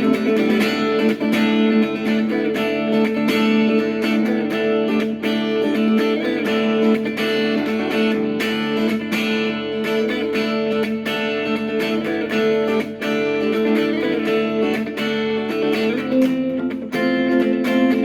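Instrumental guitar music: steady picked and strummed guitar notes over sustained low chords.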